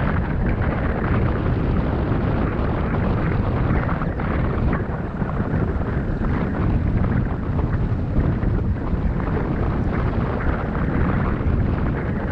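Wind rushing over the microphone of a camera on a bicycle speeding downhill: a steady, loud rumble.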